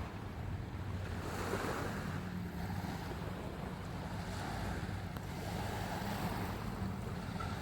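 Sea waves washing onto the shore, the surf swelling and easing every few seconds, with wind buffeting the microphone and a low steady hum underneath.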